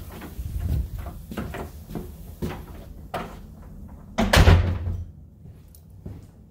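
A run of knocks and clatters from objects being handled, with one loud, heavy thud about four seconds in, then only a few faint clicks.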